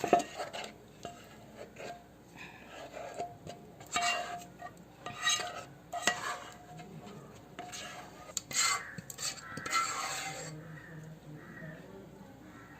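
A utensil scraping and knocking against a cooking pan as thick cooked chocolate mixture is scraped out, with a sharp knock at the start and several separate scrapes between about four and ten seconds in.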